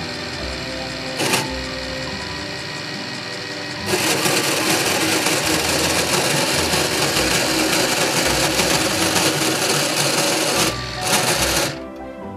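Small electric motors and gear trains of a Meccano robotic arm whirring as it lifts a sack and swings round. There is a click about a second in. The whir grows louder about four seconds in and cuts off shortly before the end.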